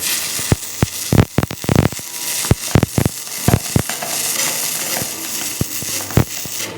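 Electric arc welding: a steady frying crackle with sharp pops and snaps, many through the first four seconds and fewer after.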